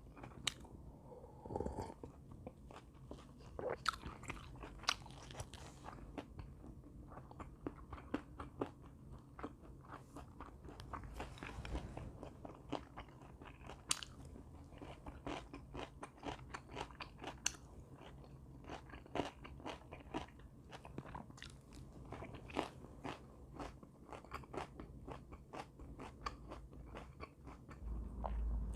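A person chewing and biting crisp food close to the microphone, with a steady run of small sharp crunches.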